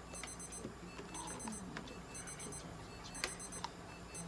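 Electronic alarm beeping: short groups of rapid high-pitched beeps, repeating about once a second, over a low steady hum. A single sharp click about three seconds in.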